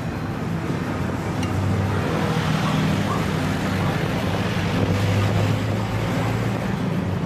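Street traffic: a steady low engine hum over a rushing, wind-like noise, a little louder from about two seconds in.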